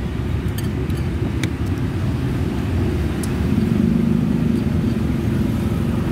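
Steady low rumble of engines from nearby street traffic, with a humming engine tone that swells about halfway through. A few light clicks of a metal spoon and chopsticks against a ceramic bowl come in the first seconds.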